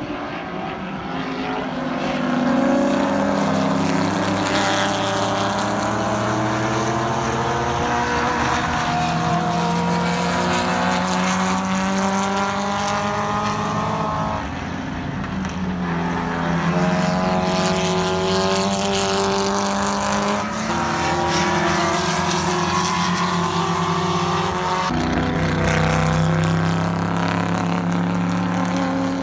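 Vintage sports racing cars running around a road-course corner. Their engine notes climb gradually as they accelerate, then drop and climb again as further cars come through one after another.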